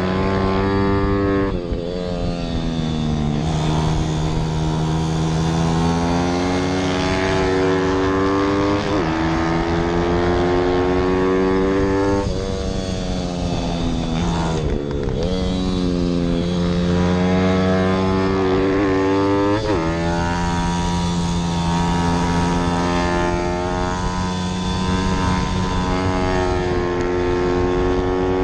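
Zongshen 160 cc single-cylinder pit bike engine at racing revs, heard onboard. The pitch climbs through the gears and drops sharply several times as the rider brakes and shifts down for corners.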